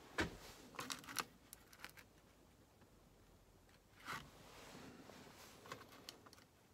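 Faint scattered clicks and taps of a paintbrush being picked up and handled, then about four seconds in a soft scuffing as the brush works on watercolor paper, with a few more small clicks near the end.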